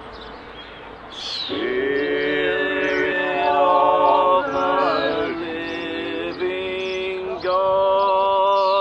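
Voices singing a slow prayer song in long, held notes, starting after a short pause and moving between notes a few times. Birds chirp faintly in the background of the outdoor recording.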